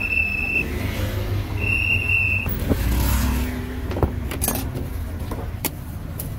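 Street traffic with a motor vehicle going by, its rumble swelling about three seconds in. A shrill steady whistle tone ends about half a second in and sounds again for about a second around the two-second mark, and a few sharp clicks follow later.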